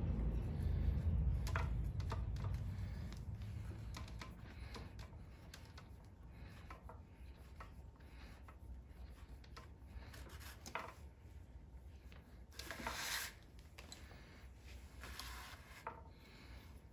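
Faint handwork of hand-stitching a leather welt: scattered light clicks and short rubbing strokes as awl, needles and thread work through the leather, with one longer scraping pull about thirteen seconds in. A low rumble fades out over the first few seconds.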